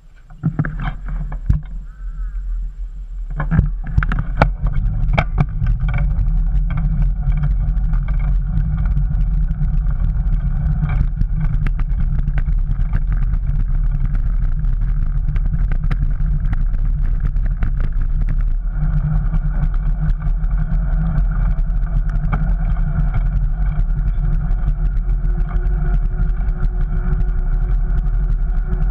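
Wind rumbling on a bicycle-mounted action camera's microphone as the bike rides over paving, with clicks and knocks from the bike and camera mount. It gets louder over the first few seconds and then stays steady.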